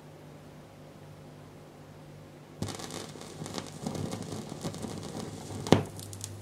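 Vintage Garrard 42M record changer: a low steady hum, then about two and a half seconds in the stylus sets down in the record's lead-in groove and vinyl surface crackle with small pops begins, with one loud pop near the end before the music starts.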